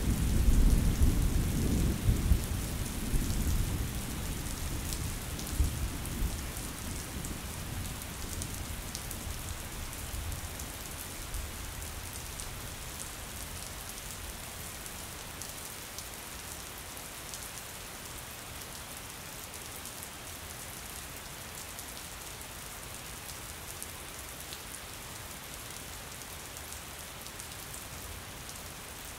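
Steady rain on a window pane, an even hiss throughout. A low rumble of thunder at the start dies away over the first ten seconds or so.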